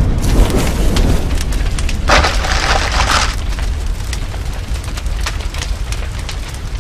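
Explosion sound effect: a deep rumbling boom with fire crackling through it, and a louder rushing burst about two seconds in that lasts about a second before the rumble and crackle die down.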